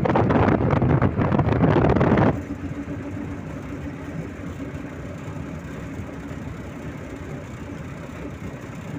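Wind buffeting the microphone of a moving vehicle, loud and rough. About two seconds in it cuts to quieter, steady vehicle running and road noise with a low, even hum.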